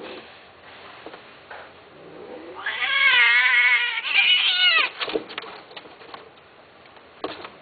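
Long-haired cat yowling in a drawn-out wavering call that starts about two and a half seconds in, followed straight away by a shorter call that rises and falls and stops near the five-second mark. A few soft clicks follow.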